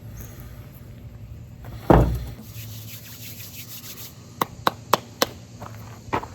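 Horseweed hand-drill spindle rubbing on a cardboard fireboard. There is a heavy thump about two seconds in, and a quick run of sharp clicks or taps near the end.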